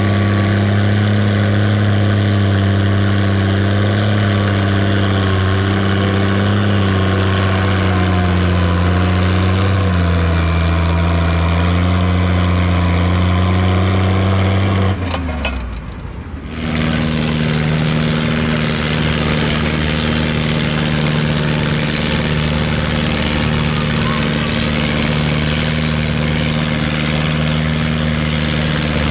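Antique farm tractor engine running steadily at a constant speed with a deep, even note. About halfway through it drops away briefly, and another steady engine note, higher-pitched, takes over.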